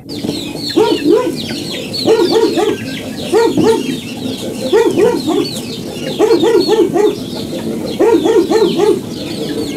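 Farmyard chickens clucking in short repeated runs about every second and a half, with high chirping over them.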